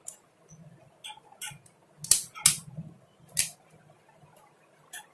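A multimeter and a metal folding hex key set being handled and set down on a cardboard-covered table: a few sharp clicks and knocks, the loudest in the middle.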